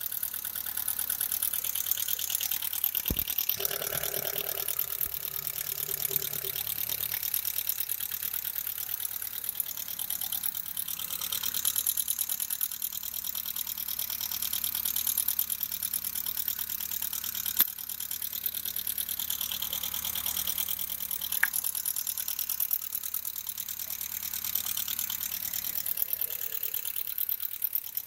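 VW Passat B3 1.8-litre RP four-cylinder petrol engine idling steadily, heard with the bonnet open, with a fast, even ticking over its running note.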